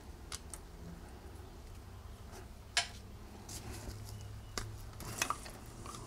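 Light clicks and clinks of small carburetor parts being handled by gloved hands while the float bowl is taken off, with one sharper click a little under three seconds in.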